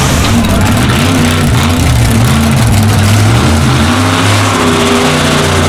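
A Chevrolet S-10 drag-racing pickup's engine running loudly as the truck rolls slowly down the lane. Its pitch rises and falls a little with light throttle.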